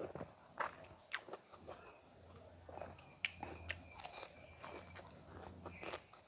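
Close-miked chewing of a mouthful of rice and curry eaten by hand: an irregular run of wet mouth clicks and smacks.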